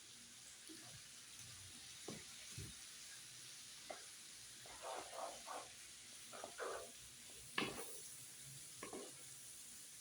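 Pasta sizzling faintly on a flat griddle while a utensil stirs it, with a dozen or so short scrapes and clacks. The sharpest clack comes about three quarters of the way through.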